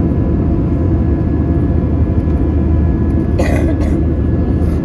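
Airbus A320 cabin noise: a steady, loud low rumble of the jet engines and airflow, with faint steady whine tones. A few short bursts of noise come near the end.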